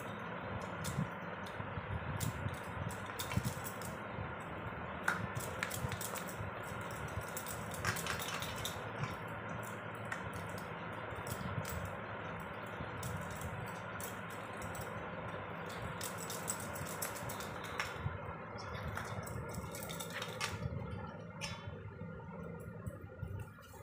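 A knife cutting through baked poda pitha on a steel plate, with scattered small clicks and clinks of the blade, plate and bangles, over a steady background hiss that thins out about 18 seconds in.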